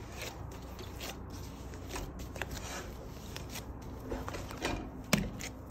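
Gloved hands punching down and folding bread dough in a glass bowl: faint, sparse squishing and rubbing of glove on dough, with one sharper click a little after five seconds.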